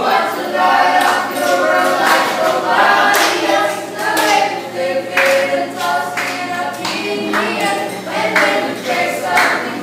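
A group of ice cream shop staff singing together without instruments, in short loud phrases.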